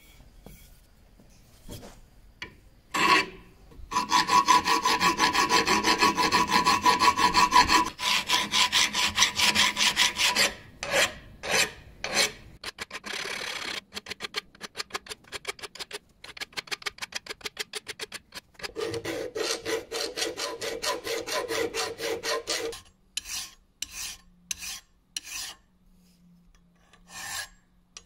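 Metal hand file scraping back and forth across a wrought iron screwdriver blade held in a bench vise. After a quiet start the strokes come fast and close together with a steady ringing tone over them, then turn into separate strokes, another quick run, and a few spaced strokes at the end.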